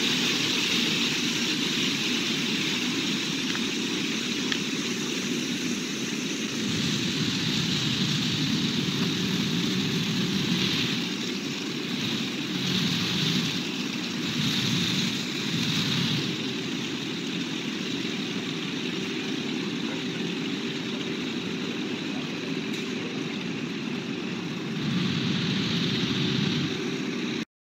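Steady splash and hiss of a plaza fountain's rows of small water jets falling onto wet stone, with a little rise and fall in level; it cuts off suddenly near the end.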